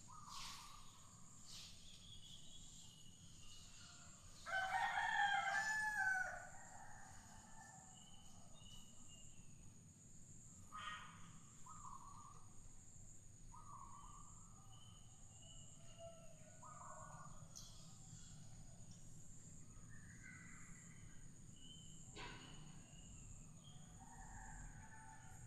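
A rooster crowing once, loudly, about four and a half seconds in, followed by fainter, shorter fowl calls. A steady high-pitched whine runs underneath.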